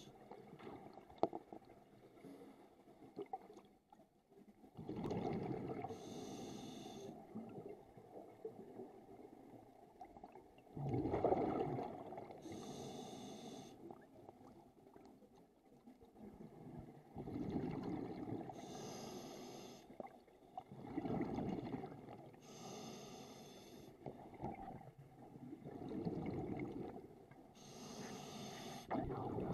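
A scuba diver's own breathing through a regulator, heard underwater: about five breaths, each a low bubbling rumble of exhaled bubbles followed by the higher hiss of the demand valve on the inhale, every five or six seconds.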